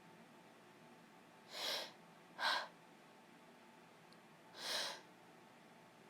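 Three breaths from a woman with a cold, each a short burst of breathy noise: a gasping in-breath, a shorter louder puff about a second later, then a longer breath out a couple of seconds after that.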